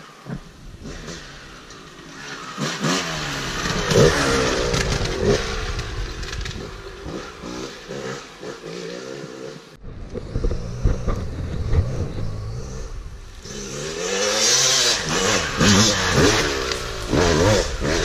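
Dirt bike engine revving up and down again and again as the bike accelerates and backs off along a rough trail, close to the rider's camera. The sound breaks off abruptly about ten seconds in and picks up again at once.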